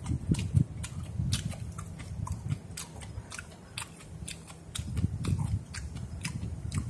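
Close chewing of a mouthful of musaengchae, Korean seasoned raw radish strips, with irregular crisp crunches as it is bitten.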